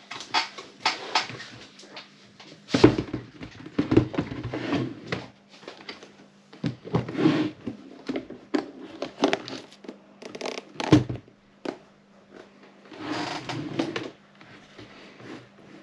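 Erika 30 typewriter being worked: irregular sharp mechanical clacks and knocks, some single and some in dense rattling clusters of a second or two, over a faint steady hum.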